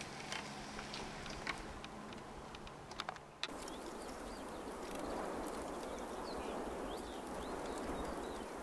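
Permobil F3 power wheelchair's drive motors humming steadily as it rolls along a paved trail, with small clicks and crackles from grit under the tyres. About three and a half seconds in the sound cuts off suddenly to a steady outdoor hiss with a few faint bird chirps.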